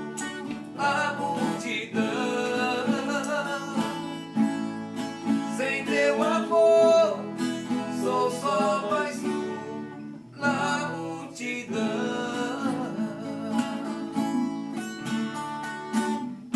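Viola caipira and acoustic guitar playing a slow song, with male voices singing long held notes in a few phrases.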